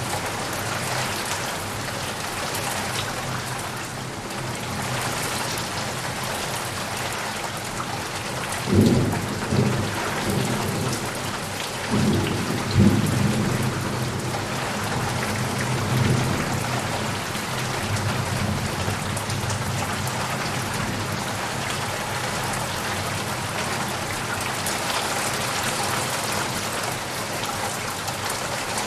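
Heavy rain falling steadily, with thunder rolling in a few low rumbles about a third of the way through and fading out towards the middle.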